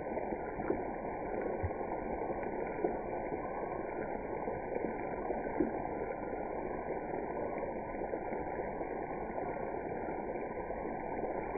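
Flour-dredged chicken pieces deep-frying in hot oil: a steady bubbling with a few small pops, sounding muffled.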